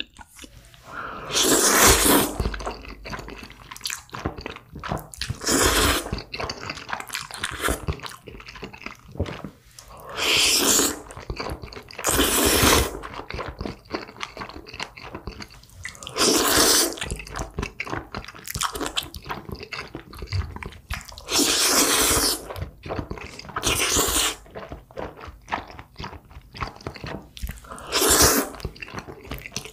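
Close-miked eating of black bean noodles: loud wet slurps of noodles every few seconds, about eight in all, with smacking, squelching chewing in between.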